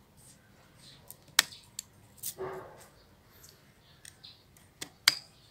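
Bonsai pruning shears snipping side branches: a handful of sharp clicks, the loudest about a second and a half in and again near the end. A short, duller sound comes about halfway through.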